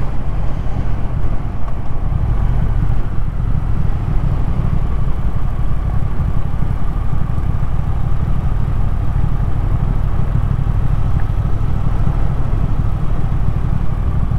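Triumph Thruxton R's 1200 cc parallel-twin engine running steadily as the motorcycle rides along, mixed with heavy low wind rumble on the microphone.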